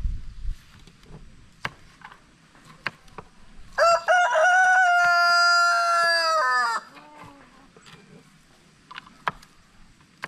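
A rooster crows once about four seconds in: one long call of about three seconds that holds steady and then falls away at the end. Around it come scattered light taps of knives on wooden chopping boards.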